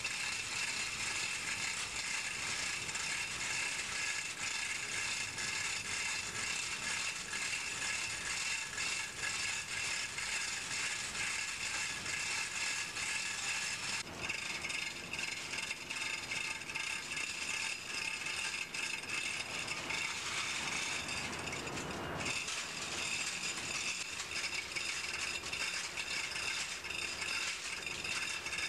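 Steady engine-room machinery din with a fast, continuous rattle. The character of the noise changes abruptly about halfway through and again near the end.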